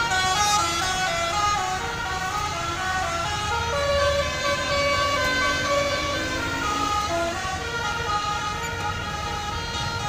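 Bus 'telolet' Basuri multi-tone horn playing a continuous melody of short held notes that step up and down, over a low rumble.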